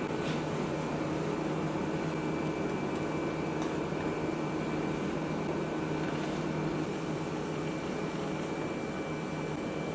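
A steady hum and hiss with a few faint held tones, unbroken and without distinct knocks or clatter.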